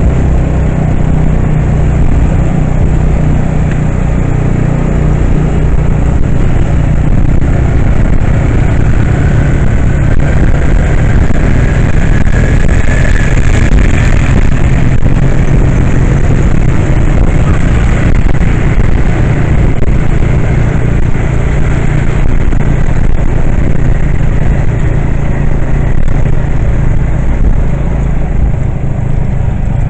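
Steady engine and road rumble of a moving vehicle, heard from on board, with a faint rising whine around the middle.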